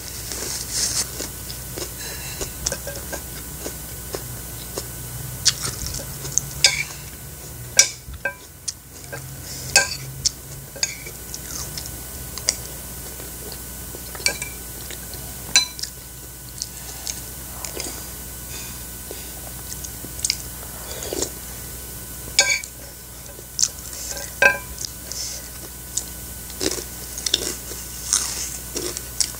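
Close-up eating sounds: chewing, with a metal spoon clinking against a soup bowl and plate in scattered sharp clicks.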